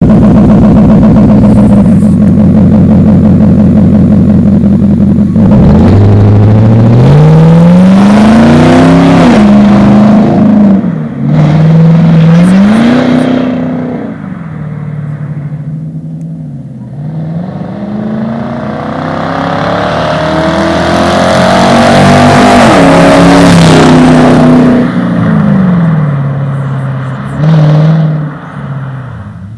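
Infiniti FX45's V8 engine running through an aftermarket exhaust. It idles steadily for about five seconds, then is revved repeatedly, its pitch climbing and dropping back several times, loud throughout.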